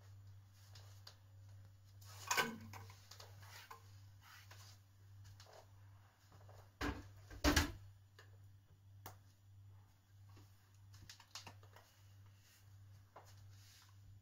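Kitchen sounds at a cast-iron wood stove: faint scattered crackles and ticks over a steady low hum, with a sharp knock about two seconds in and two louder knocks a little past the middle.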